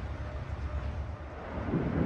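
Steady low rumble with wind on the microphone, and a Keikyu electric train's rumble swelling about two thirds of the way through as it closes in on the level crossing.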